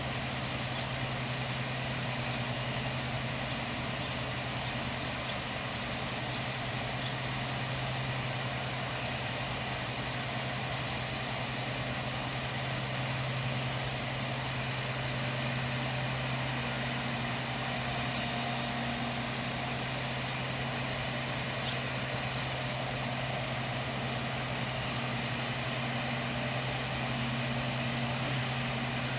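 Waterfall: falling water rushing in a steady, even wash of noise with a constant low hum underneath.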